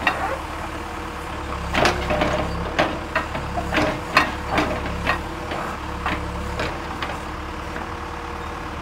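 John Deere backhoe loader's diesel engine running steadily while it digs a ditch. From about two seconds in until about seven seconds, a run of irregular clanks and knocks sounds as the bucket works in the trench.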